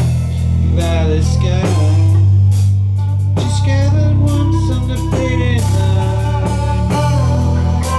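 Rock band playing live: electric guitar over a drum kit with cymbals, with deep sustained notes underneath that change about every two seconds.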